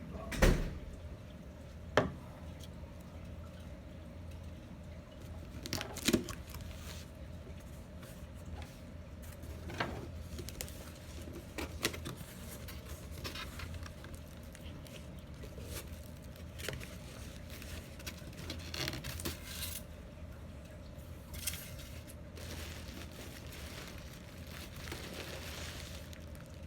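Scattered knocks, taps and rustling from something being handled. The loudest knocks come just after the start, about two seconds in and again near six seconds.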